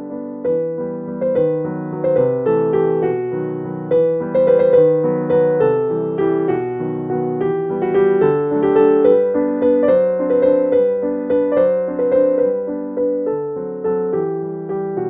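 Background piano music: a light melody of struck notes, each fading after it is played, in a steady flowing rhythm.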